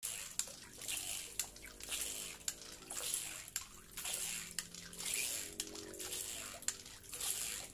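Homemade PVC hand pump worked in a pond, water gushing and splashing from its outlet in a surge about once a second with each stroke, each stroke marked by a sharp click.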